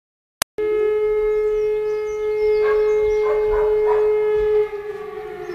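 Outdoor warning siren sounding one long steady tone, then starting to wind down and slide lower in pitch near the end.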